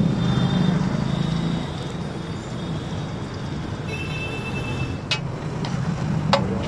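Street traffic with a vehicle engine running, loudest in the first second or so, and two sharp metallic clinks later on from a steel spatula striking the flat griddle.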